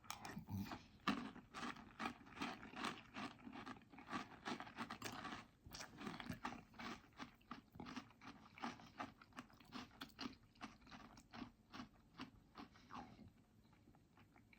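A person chewing a mouthful of chocolate breakfast cereal in milk, a quick run of small crisp crunches, showing the cereal is still crunchy after sitting in the milk. The chewing stops about a second before the end.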